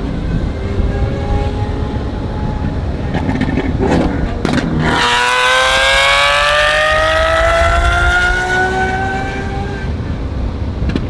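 Lamborghini Aventador SVJ V12 with a Gintani F1 exhaust, over steady road and wind noise. A few sharp cracks come about three to five seconds in. Then the engine opens into a loud full-throttle pull, its pitch climbing steadily for about five seconds before it eases off.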